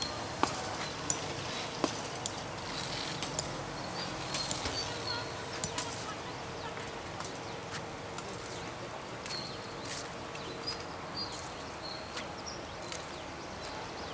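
Outdoor ambience on a demolition site: irregular sharp knocks, most of them in the first half, over a steady low hum, with short high chirps now and then.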